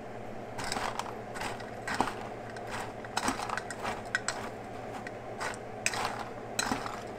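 A metal fork stirring dry kibble and cooked meat in a ceramic bowl: irregular clinks and scrapes of the fork against the bowl and rattling kibble, starting about half a second in, over a steady low hum.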